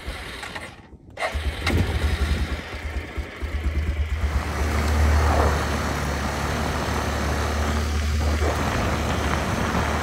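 ATV engine running steadily while riding across the ice. It comes in suddenly about a second in.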